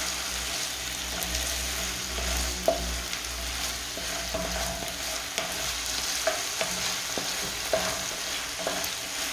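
Minced meat, rice and onion sizzling in a non-stick frying pan while a wooden spatula stirs and scrapes through it, with many small taps of the spatula on the pan.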